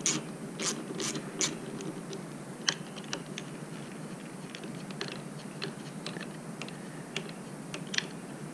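Small, irregular metallic clicks and taps of a hand tool working on the motorcycle clutch lever's pivot bolt as it is undone to free the lever, with a few sharper clicks in the first second or so.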